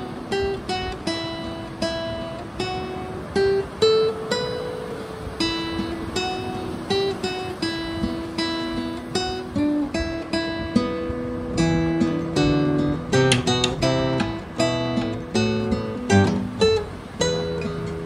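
Background music played on acoustic guitar: plucked and strummed notes in a steady flow, with lower bass notes joining about two-thirds of the way through.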